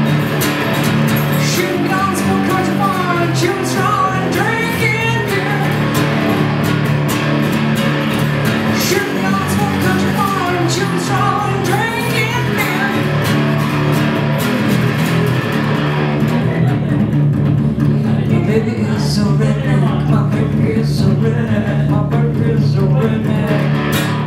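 Cutaway steel-string acoustic guitar strummed steadily with a woman singing over it in a live solo performance.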